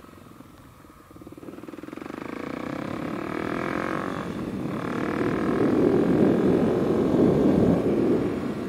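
Kawasaki KLX 300's single-cylinder four-stroke engine through a carbon Delkevic slip-on exhaust, running quietly at first, then revving up as the bike accelerates from about a second in. There is a short dip about four seconds in, then it runs louder still under throttle.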